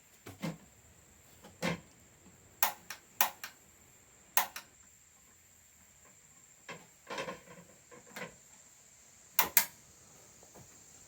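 Scattered knocks and clatters of kitchenware being handled and set down on a counter, some in quick pairs, over a faint steady high hum.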